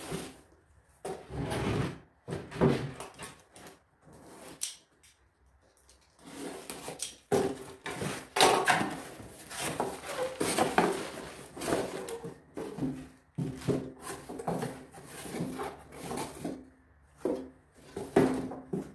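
Cardboard box being opened and handled: irregular scraping, rubbing and knocks of the cardboard, with a quieter pause a few seconds in. The tool in its plastic bag is slid out and set on the bench.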